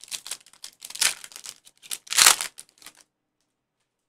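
Foil wrapper of a Panini Chronicles football card pack being torn open and crinkled: a run of crackles, loudest a little over two seconds in, stopping suddenly at about three seconds.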